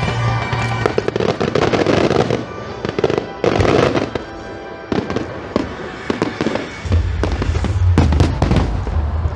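Aerial fireworks going off, with many sharp bangs and crackles in quick succession, dense clusters of them in the first few seconds, over music. A deep bass in the music comes in about seven seconds in.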